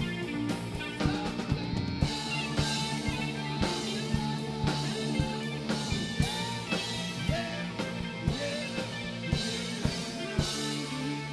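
Rock music with guitar and a steady drum beat of about two hits a second.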